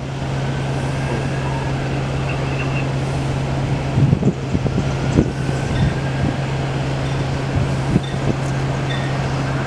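Steady low hum of idling vehicle engines, with a few short knocks about halfway through.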